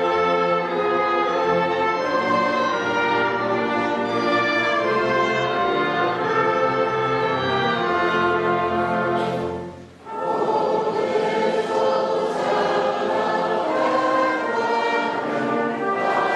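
Choir singing with an orchestra in a sustained classical passage, recorded live in concert. The music breaks off briefly about ten seconds in, then the choir and orchestra come back in.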